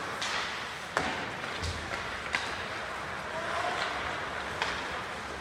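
Ice hockey play in a rink: a steady hiss of arena noise broken by a few sharp clacks of sticks and puck, about three in all.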